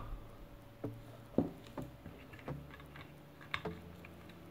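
A few light clicks and knocks, the loudest about a second and a half in, as a rubber washer is fitted by hand inside a stainless steel mixer-grinder jar.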